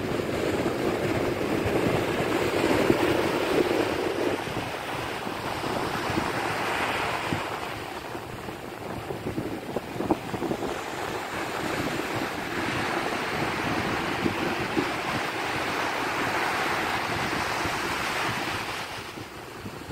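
Ocean surf: waves breaking and washing up a sandy beach in a steady rushing hiss that swells and eases as each wave comes in.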